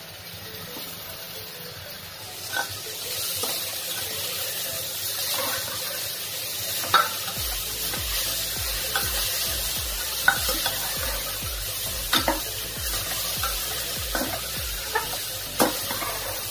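Chopped bitter gourd sizzling as it fries in oil in a pressure cooker, building up about two seconds in. A metal spatula stirs it, scraping and tapping against the pot every second or two.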